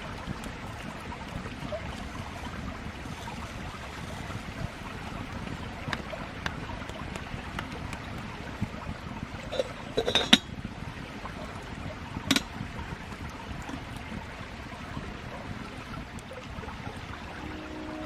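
Campfire burning with a steady crackle and scattered sharp pops, two louder ones a little past the middle.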